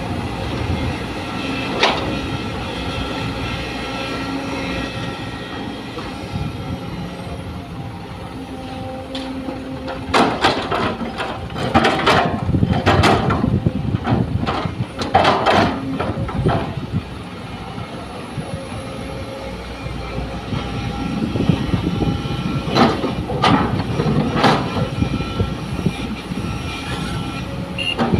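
Sumitomo hydraulic excavator's diesel engine running steadily under load. Twice it is broken by several seconds of loud metallic clanking and scraping as the machine works.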